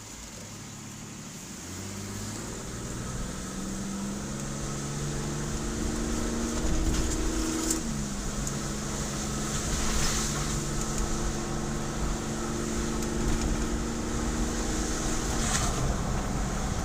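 Car engine pulling away: its pitch climbs for several seconds, drops about eight seconds in as the transmission shifts up, then holds steady and falls again near the end, over a steady low road rumble heard from inside the car.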